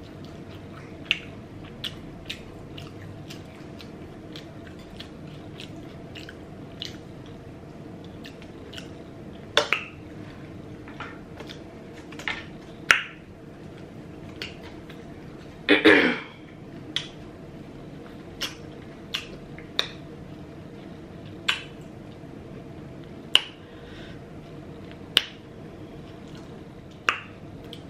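Close-up chewing: wet mouth clicks and lip smacks at irregular intervals over a faint steady hum, with two louder mouth sounds about ten and sixteen seconds in.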